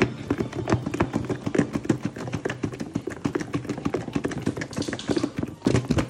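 Raw chicken pieces coated in mustard and hot sauce shaken hard inside a lidded Rubbermaid plastic food container, knocking wetly against its sides in quick, irregular strokes, several a second.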